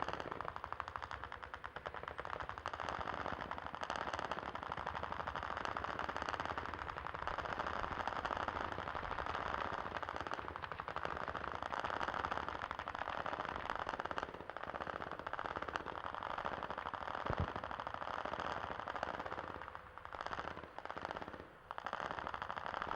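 Sustained automatic gunfire, a dense rapid stream of shots with hardly a gap, broken by a couple of brief lulls near the end.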